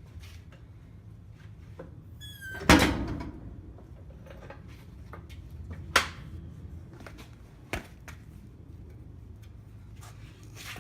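Metal clanks from tools and suspension parts while a truck's front suspension is taken apart. There is one loud clang with a brief ring about two and a half seconds in, a sharp knock around six seconds, and a smaller knock near eight seconds, over a low steady hum.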